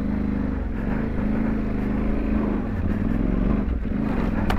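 Yamaha Ténéré 700's parallel-twin engine, through an aftermarket exhaust, running at low revs off-road, its pitch rising and falling with the throttle. A brief sharp click sounds near the end.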